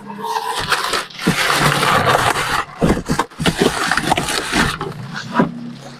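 Plastic packing wrap crinkling and rustling as it is handled and pulled away, in a dense irregular crackle that thins out near the end.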